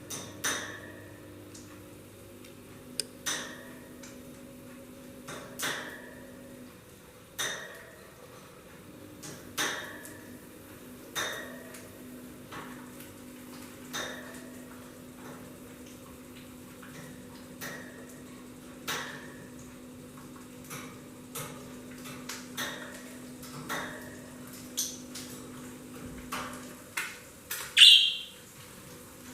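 Light, sharp clinks and taps repeating irregularly, about one every one to two seconds, each with a brief ring, over a faint steady hum, with a louder short high-pitched sound near the end.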